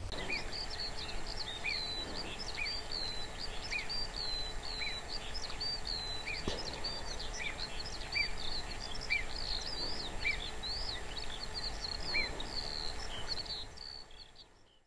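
Outdoor ambience of many small birds chirping and calling, with one short call repeated about once a second, over a low steady background noise; it fades out near the end.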